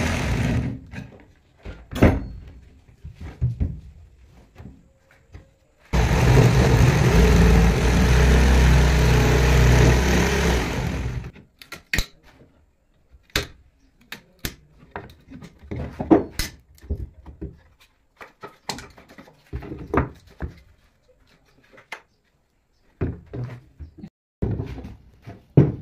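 Electric jigsaw cutting slots into a thick hardwood board: it runs briefly at the start, then makes one steady cut of about five seconds starting a quarter of the way in. After it stops comes a run of sharp, irregular knocks and taps as the waste is worked out of the slots.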